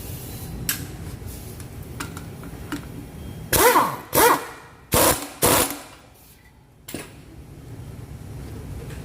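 Impact wrench run in four short bursts, each about half a second, one after another about midway, with a few light metal clicks before and after.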